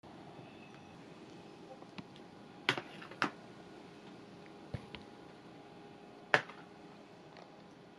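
Tableware being handled on a table: a few sharp clicks and light knocks of dishes and chopsticks, with a pair close together near the middle and the loudest a little later, over a faint steady room hum.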